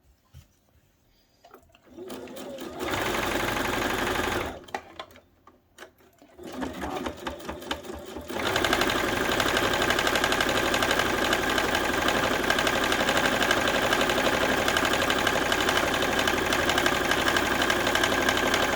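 Baby Lock sewing machine stitching across fabric and batting. A short run starts about three seconds in and stops, then the machine picks up again and runs steadily at speed from about eight seconds in.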